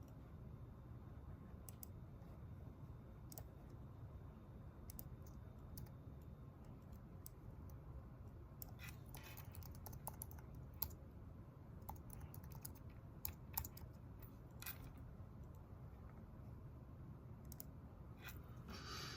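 Scattered, irregular clicks of typing on a keyboard, with a brief rustle or two, over a steady low room hum.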